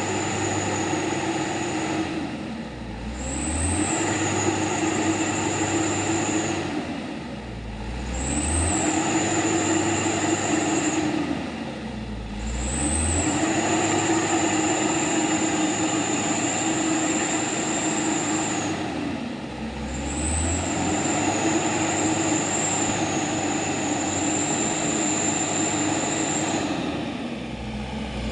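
Truck engine running under power, its note dropping off and building up again five times, every five to eight seconds, with a steady high whine over it that jumps up as the engine picks up each time.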